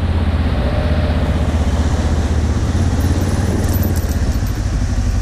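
Trail motorcycle engine running steadily at low speed with a fast, even low pulse, heard from the rider's own bike, with a few light clicks about four seconds in.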